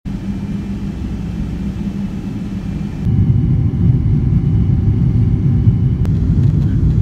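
Jet engine and airflow rumble of a Boeing airliner heard from inside the cabin, steady and low, first while the plane is on the ground. About three seconds in it jumps louder as the plane is airborne and climbing.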